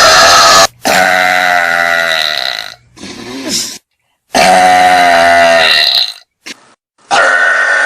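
Girls burping: a run of long, loud belches, each lasting one to two seconds, one after another with abrupt cuts between them.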